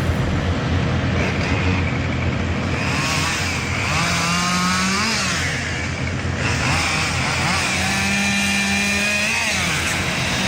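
Chainsaw engine running throughout, its pitch rising and then falling twice, about four seconds in and again about eight seconds in.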